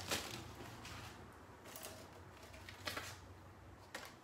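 Faint rustling and a few light clicks and taps of a phone-case box and its packaging being handled, scattered over a quiet room.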